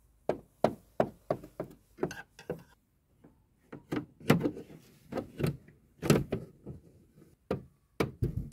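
A plastic toy figure's boots tapped step by step on a dollhouse floor and stairs, making footsteps: a run of short, irregular knocks, about two a second.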